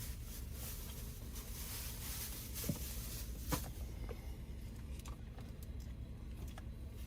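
Steady low rumble of a car heard from inside the cabin, with two sharp clicks close together near the middle.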